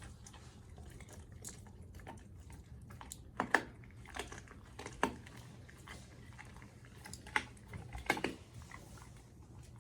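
German Shepherd chewing a raw bone: quiet gnawing broken by a few sharp, irregular crunches.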